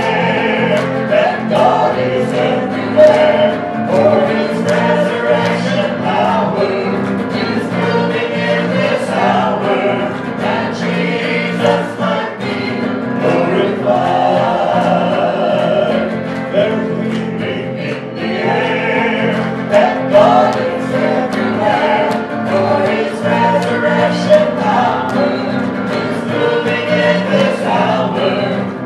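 A small gospel vocal group singing a song in harmony through microphones and a PA, with electric keyboard and electric guitar accompaniment.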